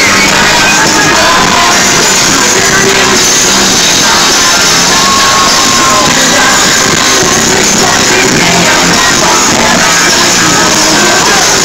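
Live pop concert in a large arena: loud band music with the crowd shouting and singing along, at a steady high level.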